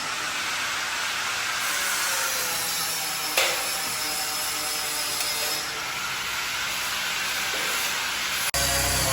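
Steady hissing noise of metalworking machinery, with one sharp knock about three and a half seconds in. Near the end the sound changes abruptly to a louder, lower running noise.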